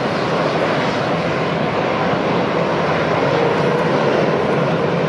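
Jet aircraft engines running: a steady, even rush of noise with a faint whine through it.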